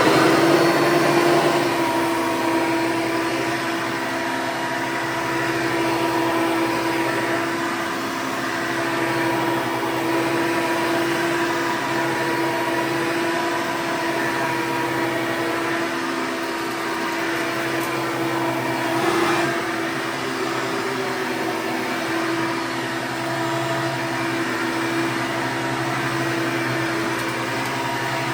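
Hoover Elite II Total System Performance 430 upright vacuum cleaner running steadily, its motor and fan giving a constant hum with a fixed pitch over a broad rushing noise.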